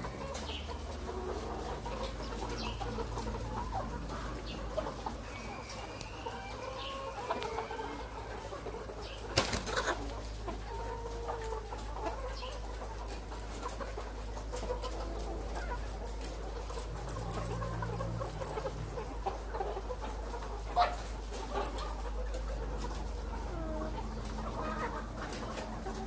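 A flock of caged laying hens clucking and calling, many short calls overlapping, over a steady low hum. Two sharp knocks stand out, one about nine seconds in and one about twenty-one seconds in.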